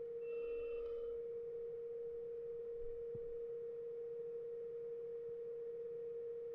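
A steady electronic whine at one constant mid pitch, unbroken throughout, with faint higher tones briefly about half a second in.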